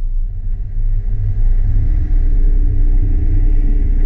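Jeep Wrangler JK Rubicon running as it drives, a steady low rumble that grows a little louder about a second and a half in.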